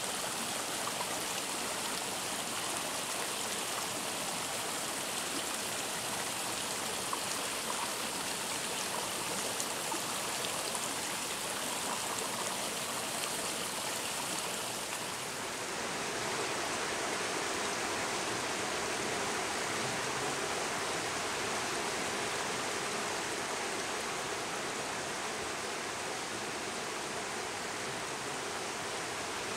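Shallow mountain stream rushing steadily over rocks and riffles. About halfway through, the sound shifts, losing some of its high hiss and becoming fuller and lower.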